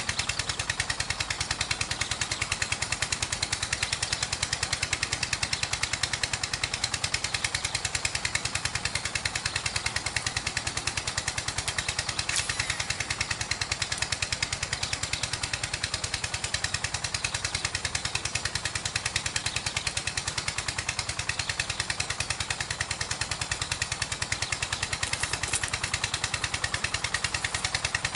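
A small engine running steadily at an even speed, its rapid regular firing pulses unchanged throughout.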